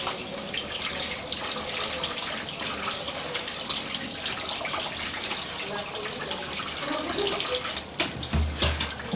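Kitchen sink tap running, with water splashing as something is rinsed under it. A brief low thud comes near the end.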